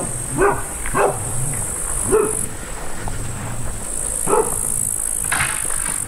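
A dog barking frantically, four or five single barks spaced out, with a short rustle near the end.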